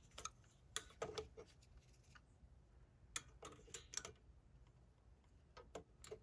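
Faint, scattered small clicks and taps of metal parts handled by fingers: the throttle rod and return spring on an Onan generator's carburetor being worked loose by hand.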